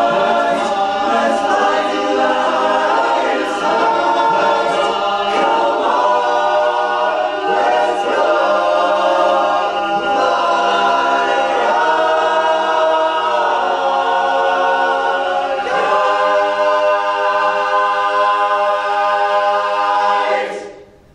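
Men's barbershop chorus singing a tag a cappella in close four-part harmony. The sustained chords shift every second or two and end on a long held chord that cuts off near the end.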